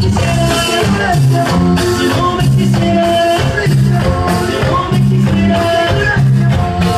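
Latin dance music played loud over a party DJ sound system, with a bass line repeating in a steady groove and held melody notes above it.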